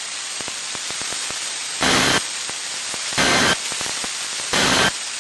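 Three short bursts of Emergency Alert System digital data tones, the SAME end-of-message code, about a second apart over steady radio static. They mark the end of the alert.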